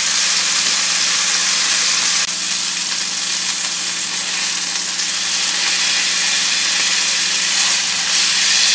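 Pieces of wild boar loin searing in hot fat in a pan: a loud, steady sizzle.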